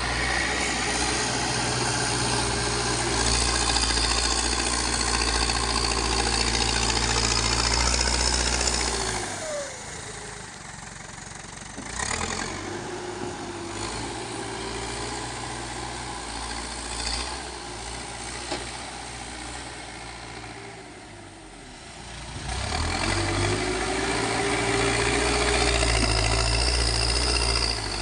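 Backhoe loader's diesel engine working at high revs, then dropping to a lower idle about nine seconds in. A few sharp knocks come during the quieter stretch, and the engine revs up again a little past twenty seconds.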